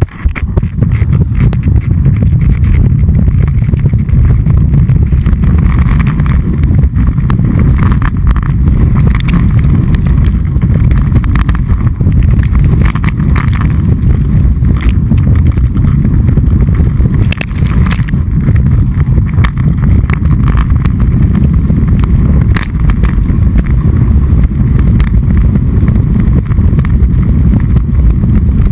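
Loud low rumble of wind buffeting a boot-mounted action camera's microphone while skiing fast downhill, with skis hissing and scraping over firm snow and occasional sharper edge scrapes.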